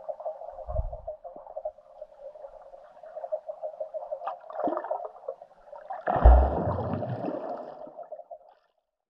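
Underwater water sound picked up by a submerged camera: a steady fluttering, gurgling rush, with a low thump about a second in and a stronger one about six seconds in, followed by a louder surge of water noise. It cuts off shortly before the end.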